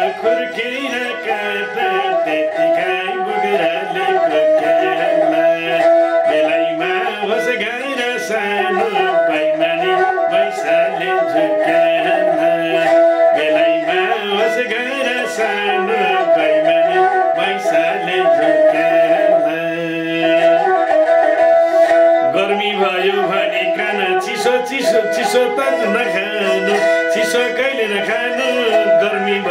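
Nepali sarangi, a bowed folk fiddle, playing a continuous melody while the player sings along.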